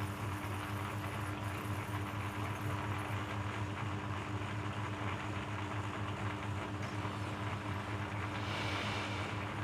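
Shredder machine running with a steady motor hum, with a brief louder rush of noise about a second before the end.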